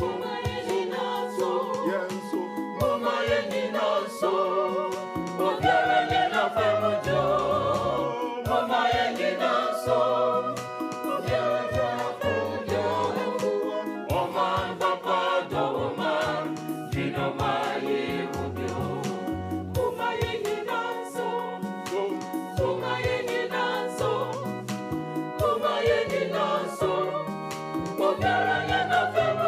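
Background music: a choir singing over sustained keyboard chords and a stepping bass line.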